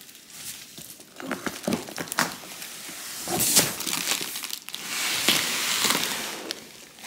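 Large, flat cardboard furniture carton being stood on edge and tipped over by hand: cardboard scraping and rubbing, with crinkling of its tape and wrapping. The scraping is loudest about halfway through and again for a second or so near the end.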